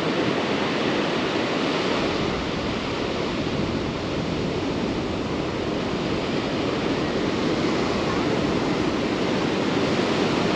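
Ocean surf washing steadily onto a sandy beach, with wind rumbling on the microphone.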